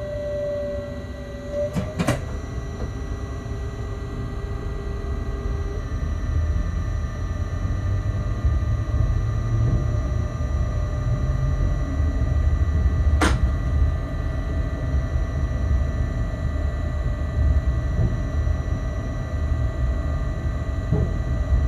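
Locomotive cab with a steady hum from the loco's equipment and a sharp click about two seconds in and again at about thirteen seconds. A low rumble builds from about six seconds in as the locomotive moves off and rolls over the yard tracks.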